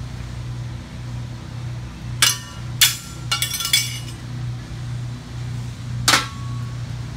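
Metal clinks and clanks of old truck brake parts being handled during removal: two single knocks, a quick rattle of several hits, then one louder ringing clank near the end as an old brake pad drops onto the concrete floor. A steady low hum pulses underneath.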